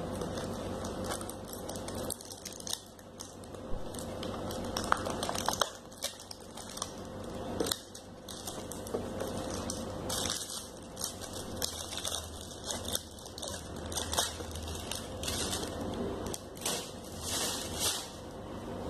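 Plastic bubble wrap crinkling and crackling as hands pull a small boxed phone out of it and turn the box over, with irregular clicks and rustles. A faint steady hum runs underneath.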